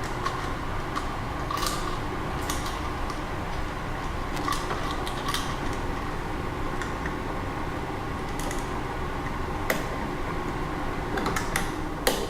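Scattered small metallic clicks and taps of a screwdriver and bare copper ground wire being worked at a terminal screw on a timer switch, with a cluster of clicks near the end, over a steady background hum.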